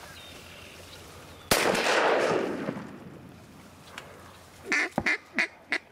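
A single shotgun blast about a second and a half in, its report rolling away over about a second. Near the end comes a quick run of about four short duck quacks.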